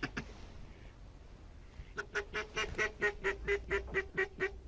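A rapid run of goose honks, about five a second, starting about two seconds in and stopping just before the end.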